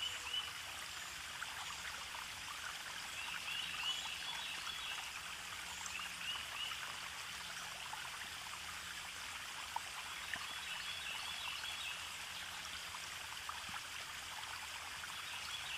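Steady rushing of river water, with a few small splashes and some faint high chirps now and then.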